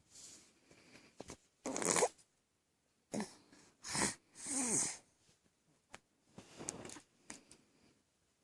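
Snoring: a series of irregular, noisy breaths, one every second or two, with the loudest around two seconds in and between four and five seconds in. The one about four and a half seconds in carries a falling whistle.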